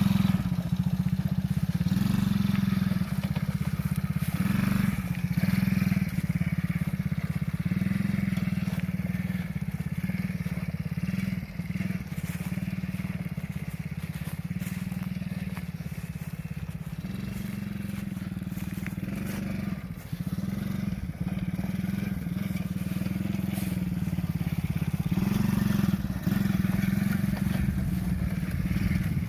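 Small 50cc children's ATV engine running continuously as it is ridden, its throttle and level easing off and picking up again.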